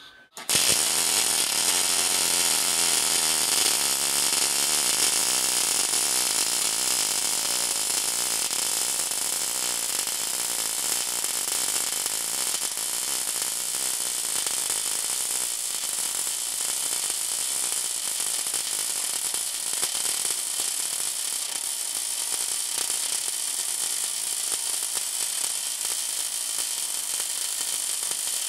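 Automated gas metal arc welding on pipe, a steady buzzing crackle from the short-circuit arc, starting abruptly about half a second in.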